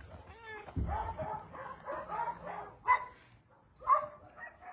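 A dog giving several short, pitched barks and whines, the sharpest about three and four seconds in.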